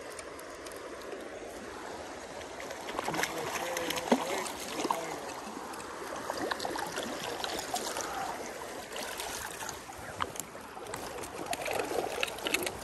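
Hooked trout splashing at the surface of a swollen, muddy creek while being played on a fly rod and brought toward a landing net, over steady rushing creek water. The splashes come in irregular bursts, heaviest a few seconds in and again near the end.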